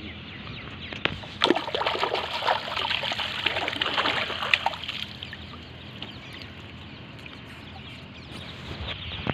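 Water splashing and dripping as a gill net is hauled up over the side of a small boat. The splashing is loudest for a few seconds from about a second and a half in, as a large prawn caught in the mesh breaks the surface. After that it settles to a quieter trickle.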